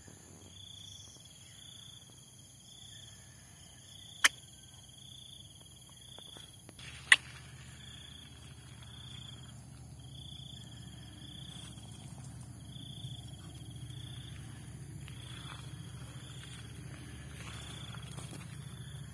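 Insects chirping in a steady, regular pulse, a little faster than one chirp a second, over a constant high-pitched insect drone. Two sharp clicks stand out, about four and seven seconds in, and a low rumble builds after the second.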